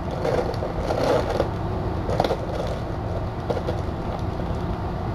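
Steady low background hum with short bouts of rustling and crackling in the first second and a half and again about two seconds in.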